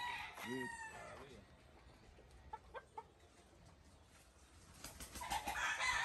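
Roosters crowing: one long crow ends about a second in, and another starts near the end. Three short clicks in the quiet middle.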